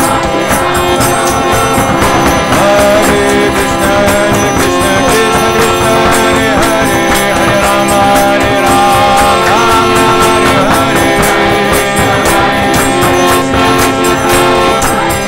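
Devotional kirtan music: held tones under a melody that bends in pitch, with a dense, steady percussive beat throughout.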